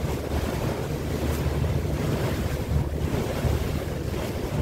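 Boat under way: a steady low engine hum with wind buffeting the microphone and water rushing past the hull.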